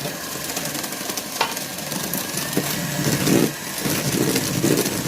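Electric mixer whipping egg whites and sugar into meringue, its motor running steadily with the beaters whisking in the bowl.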